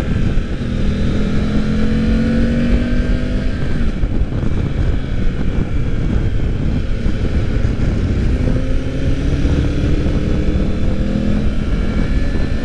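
Triumph Tiger 900 Rally Pro's three-cylinder engine revving up under riding, its pitch rising, falling away about four seconds in, then climbing again from about eight seconds in and dropping near the end, over a constant low rush of wind.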